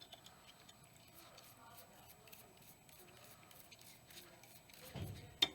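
Faint brush scrubbing of suppressor baffles being cleaned in solution, with one sharp click near the end.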